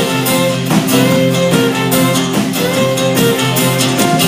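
Live country band playing an instrumental stretch of the song between sung lines, with long held melody notes over the accompaniment.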